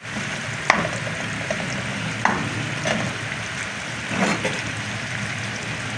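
Spice-marinated fish pieces shallow-frying in hot oil in a pan: a steady sizzle with a few sharp pops of spitting oil.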